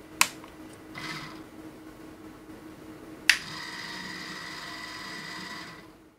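LED mushroom DMX light powering up for a test after repair: a sharp click, then the fixture's motor and electronics running with a steady whine for a few seconds before it cuts off.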